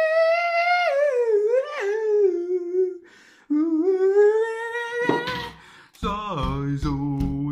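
A high wordless vocal in a song, hummed or crooned. One long note slides down in pitch, and after a brief break a second note rises. About six seconds in, strummed chords and a bass line come in with a steady beat.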